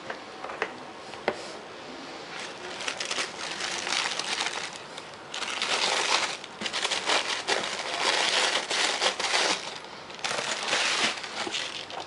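Packaging crinkling and rustling as a shoe box is unpacked, with a couple of light clicks at first, then the loudest stretches of crinkling in the middle and again near the end.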